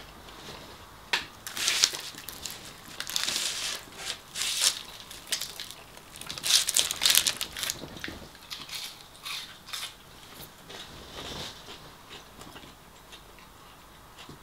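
Crisp battered fish and chips being handled and eaten: irregular crunching bursts through the first half, then fainter chewing clicks.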